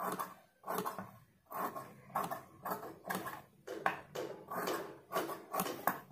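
Cloth and sewing tools being handled: a string of irregular rustles and light knocks, about two a second.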